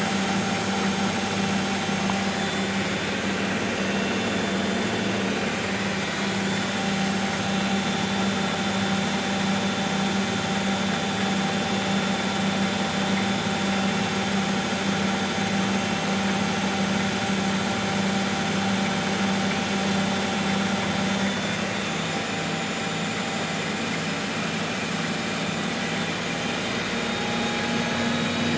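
Miele Hydromatic W734 washing machine running, its motor giving a steady loud whirring hum that changes pitch about two-thirds of the way through.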